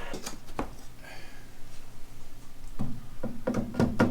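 Scattered light clicks and taps from wooden boards being handled, with a few duller knocks about three seconds in.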